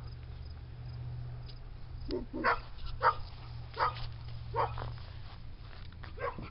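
Collie giving a series of short, high whines and yips, about six cries from about two seconds in, each sweeping up in pitch.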